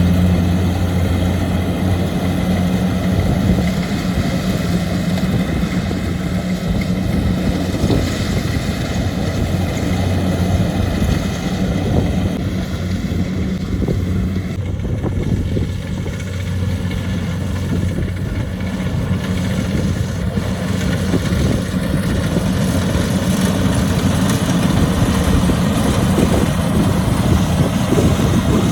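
Kubota DC-70 Plus rice combine harvester's diesel engine running steadily with a low, even drone, easing slightly about halfway through.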